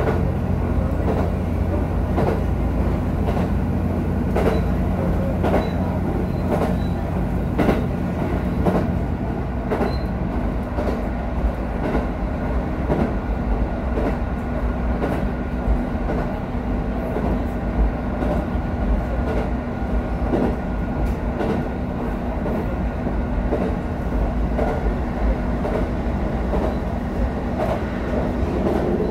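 Diesel railcar running along the line, heard from the driver's cab: a steady engine drone, heavier for the first several seconds and then easing, with the wheels clicking over rail joints now and then.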